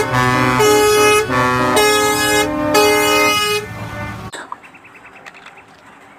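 Truck air horns sounding a run of long notes, several pitches at once, changing pitch in steps. The sound cuts off abruptly about four seconds in, leaving only faint clicks.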